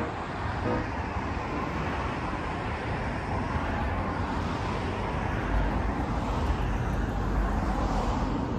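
Steady outdoor rushing noise with a low rumble that swells for a few seconds past the middle: traffic-like ambience by the pond.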